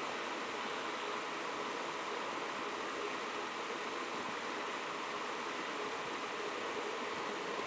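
Steady, even background hiss with no calling or other distinct event.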